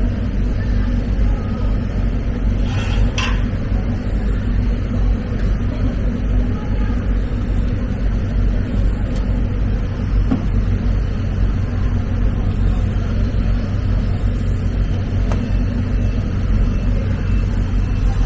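Steady low hum and rumble of running machinery, with two faint knocks about three seconds in.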